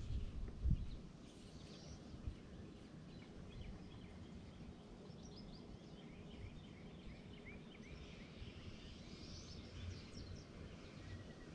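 Faint outdoor ambience with small birds chirping in the background, the chirps thickest in the middle and latter part, over a low wind rumble on the chest-mounted microphone. A few soft handling bumps come in the first second.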